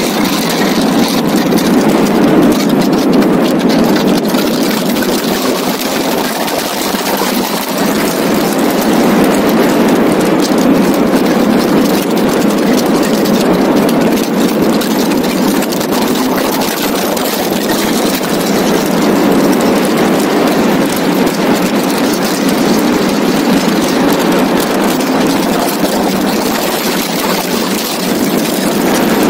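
Donkervoort D8 GTO RS's turbocharged Audi five-cylinder engine pulling hard at speed on track, heard from the open cockpit mixed with heavy wind rush. The level swells and dips gently as the car accelerates and lifts through the corners.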